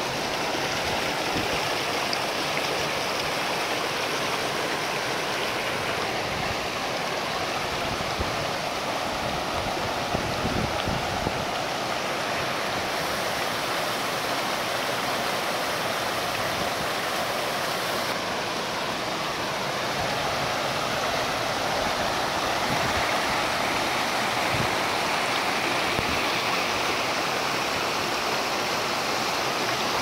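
Shallow creek rushing over and between rocks and spilling down a small cascade, a steady rush of water.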